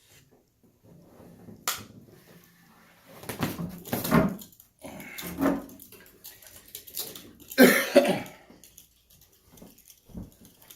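Handling of a flat-screen TV's plastic filter sheets and LCD panel: a sharp click, several bursts of rustling and scraping as the sheets and panel are moved, the loudest about eight seconds in, and a short low knock near the end.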